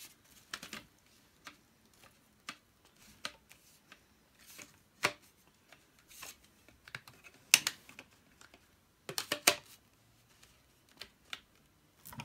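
Irregular clicks, taps and light knocks of plastic vacuum-cleaner attachments and packaging being handled, with a sharper cluster of clicks in the second half.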